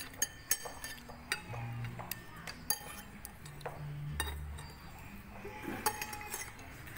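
Metal spoons clinking against ceramic plates and bowls as fish sauce is spooned over rice: a string of sharp, irregular clinks, each with a short ring.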